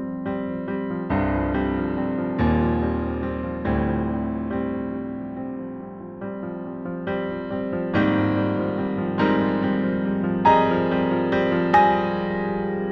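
Solo piano music playing slow, sustained chords and single notes, each struck and left to ring and fade.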